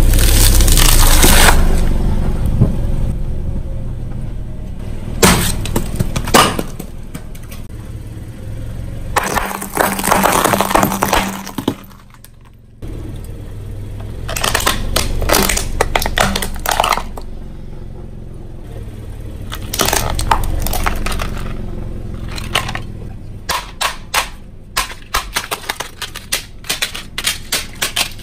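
A car tyre rolling slowly over brittle objects, including a plastic toy car, which crack and crunch under the weight in several bouts over a steady low rumble from the car. Near the end comes a run of quick, sharp snapping cracks.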